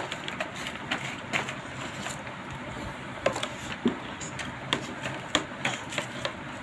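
Scattered light knocks and clicks of small children playing with toys, with one or two very short high sounds near the middle, over steady background hiss.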